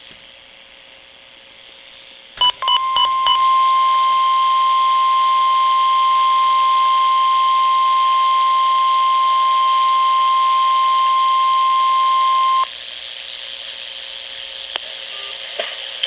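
NOAA Weather Radio warning alarm: a few short beeps, then a steady 1050 Hz tone held for about ten seconds that cuts off abruptly, leaving the radio's steady hiss.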